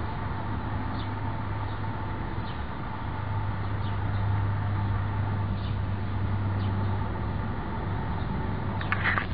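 Steady outdoor background noise with a low hum, and faint short chirps every second or so. A brief cluster of clicks comes near the end.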